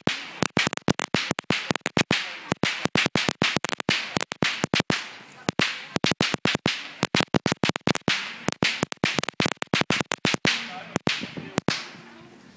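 A hanging string of firecrackers going off: a rapid, irregular crackle of sharp bangs, several a second, that thins out toward the end.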